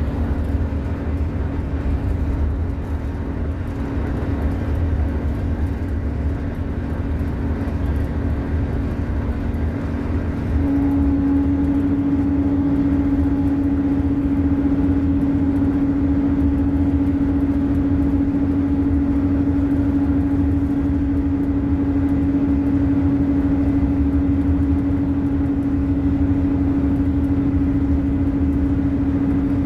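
2001 Orion V diesel transit bus under way, heard from inside the cabin: its Detroit Diesel Series 50 EGR inline-four engine and Allison transmission give a low drone with a steady hum on top. About ten seconds in, the hum steps up slightly in pitch and grows louder, then holds there.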